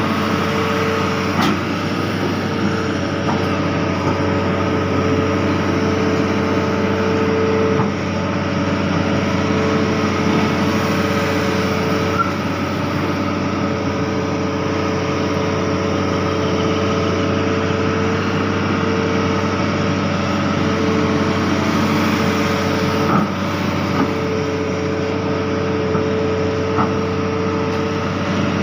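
Hitachi Zaxis 210F amphibious excavator's diesel engine running steadily under load while the machine moves through a river, heard from the operator's cab. A whine rides over the engine and drops out briefly a few times.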